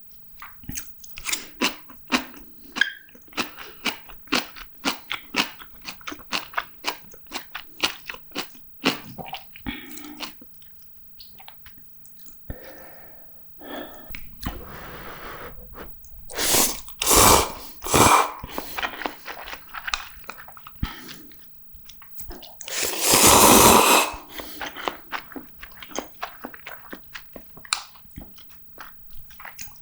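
Close-miked eating sounds of a person eating spicy ramen noodles and fried-tofu rice balls: rapid wet chewing clicks, then several longer noisy bursts, the loudest lasting about a second and a half about three quarters of the way through.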